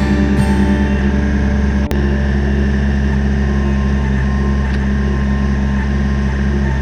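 Kubota BX23S tractor's three-cylinder diesel engine running steadily under work, with one short sharp click about two seconds in.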